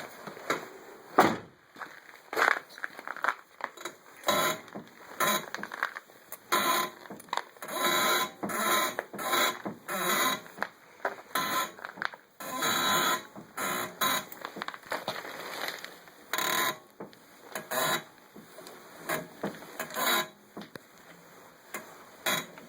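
An unwanted squeak on a Honda Integra: an irregular series of short squeaks and creaks, each from a fraction of a second to about a second long, with brief pauses between them.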